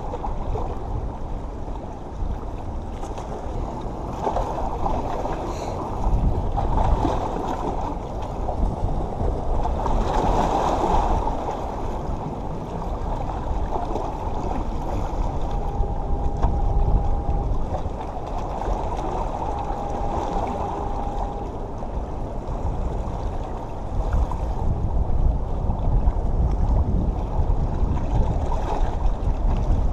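Wind buffeting the microphone with a low rumble over small waves washing against jetty rocks, swelling now and then. Two faint steady tones, each about two seconds long, sound briefly midway.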